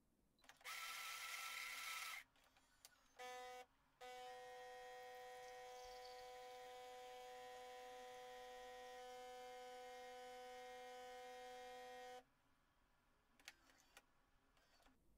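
Philips 5400 bean-to-cup coffee machine making a coffee: a short whirr of the grinder near the start, then the pump's steady humming buzz for about eight seconds while coffee runs into the glass. It cuts off suddenly and is followed by a few faint clicks.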